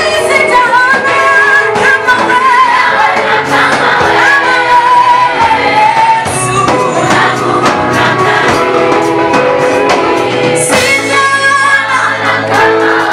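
Gospel choir singing a Swahili praise song over a steady musical backing, the sung lines wavering with vibrato.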